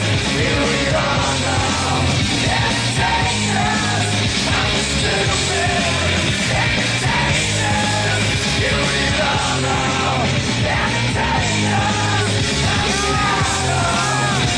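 Loud rock music with a steady, repeating bass line, and voices yelling and singing over it.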